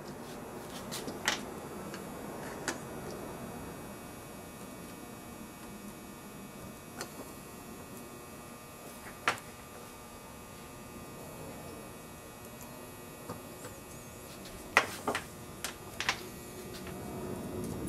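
Multimeter test leads and alligator clips clicking and clattering as they are handled and clipped onto a starter relay's terminals: a few scattered clicks, with a small cluster near the end, over a faint steady hum.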